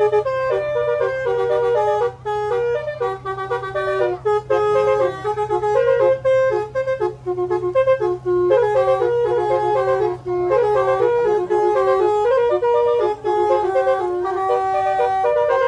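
Basuri telolet horn, a multi-note electric bus horn, playing a fast tune in short stepped reedy notes. A steady low hum runs under it until about two-thirds of the way through.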